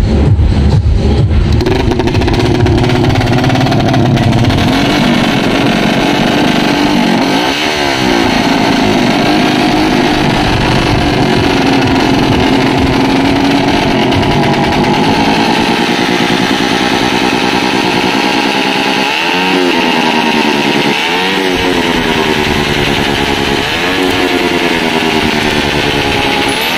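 Suzuki Smash 115 single-cylinder four-stroke engine running through an open titanium exhaust pipe. It idles steadily and is blipped several times, each quick rise and fall in pitch, with most of the blips coming close together in the last third.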